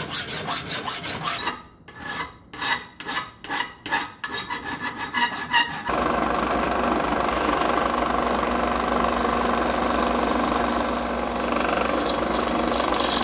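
A hand file rasping back and forth over a cu mai knife blank clamped in a vise, in quick strokes that turn slower and more spaced out partway through. About six seconds in it cuts to a drill press running steadily, a tiny twist bit boring a pin hole through the blank's handle section.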